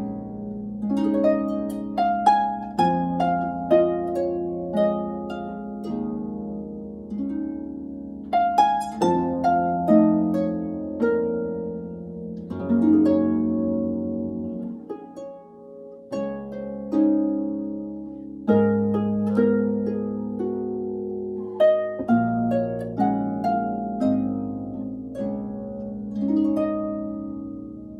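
Solo concert harp played by hand: plucked notes and chords ringing and decaying over held bass notes, easing to a softer lull about halfway through before picking up again.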